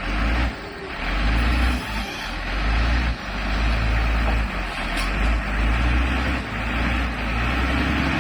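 Motor grader's diesel engine running hard, a low drone that swells and dips several times.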